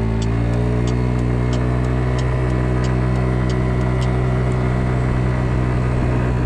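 Kymco Agility 50 scooter's small carbureted 50cc engine accelerating, its pitch rising for the first half-second and then holding steady at cruising speed. A light, regular high ticking, about three times a second, runs under it and fades out around four seconds in.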